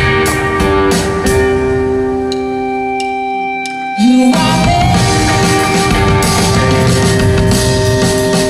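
Live rock band playing: a held, ringing chord over regular drum hits, then about four seconds in the band comes in louder and fuller.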